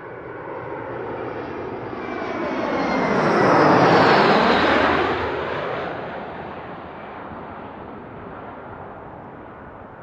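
Embraer E175 regional jet on landing approach flying over: the sound of its two turbofan engines swells to a peak about four seconds in, with a whine that slides down in pitch as it passes, then fades away.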